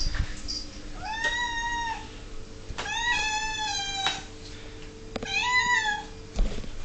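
Domestic cat whingeing for its dinner: three long meows, each rising then falling in pitch, about a second apart.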